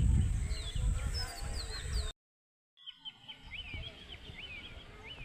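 Birds calling with many short, falling chirps, over a low rumble for the first two seconds. The sound cuts out for under a second at an edit, then the chirping goes on.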